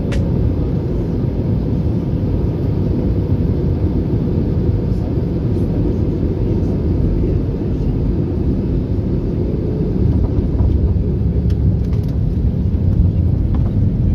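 Airbus A320 airliner heard from inside the passenger cabin: a loud, steady low rumble, a little louder about ten seconds in.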